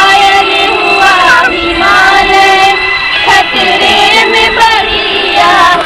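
Children singing a Hindi patriotic song about India's tricolour flag.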